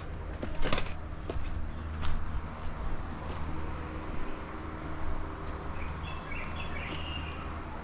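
A few sharp knocks, loudest about a second in, over a steady low hum, with a bird chirping briefly near the end.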